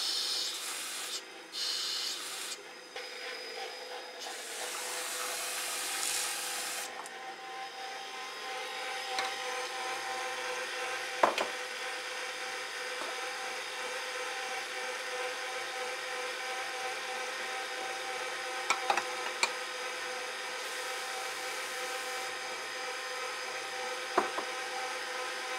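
Tap water running for the first few seconds, then a KitchenAid Professional HD 475 W stand mixer with all-metal gears running steadily at low speed (setting 2). Its dough hook is working flour and water into bread dough, giving a steady motor-and-gear whir with a few sharp clicks.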